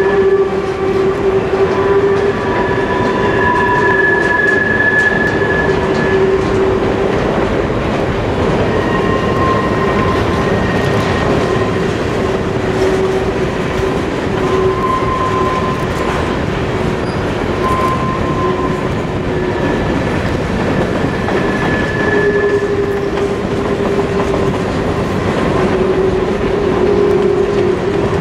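Freight cars of a long freight train rolling past on a curve: a steady rumble and clatter of steel wheels on the rails, with high squealing tones from the wheels that come and go every few seconds.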